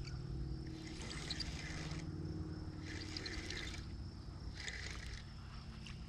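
Small creek's water trickling, with several brief louder stretches of splashy hiss.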